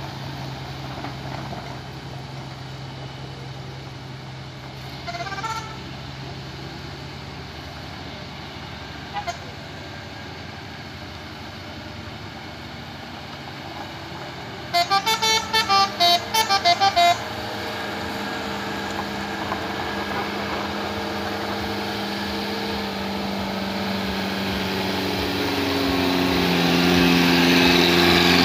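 Vehicle engines running on a gravel hill road. About halfway through comes a quick run of about eight short horn toots at changing pitches. Near the end an engine grows louder as it revs up, its note rising.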